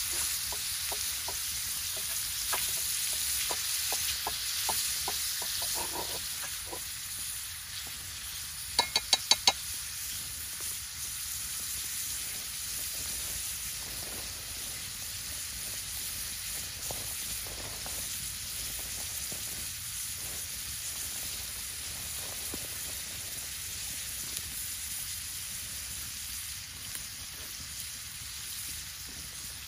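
Ground beef sizzling in a cast iron skillet over a wood fire, with scraping ticks in the first few seconds while it is stirred and broken up with a spatula. The sizzle is strongest at first and then settles. About nine seconds in come five quick, sharp clicks.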